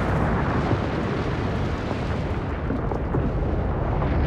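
Volcanic vent in eruption, blasting out ash: a steady low rumble with scattered sharp pops.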